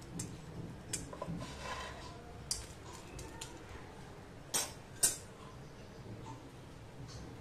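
Metal tongs clinking and tapping against a nonstick pan several times, with the two sharpest knocks coming a little over halfway through.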